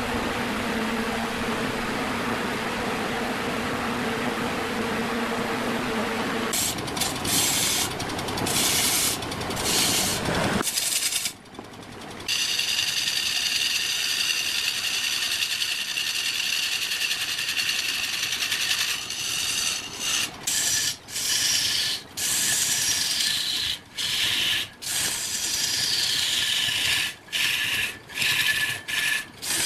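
A large log spinning on a wood lathe, first a steady rushing noise with a low hum. Then a long-handled turning tool cuts into the log, a harsh scraping with a high ringing squeal that stops and starts as the tool is lifted and set back.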